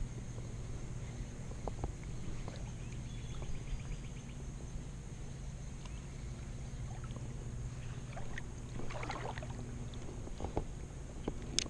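River water sloshing and lapping around a wading angler, over a steady low rumble, with a few faint clicks from the spinning reel as the lure is retrieved.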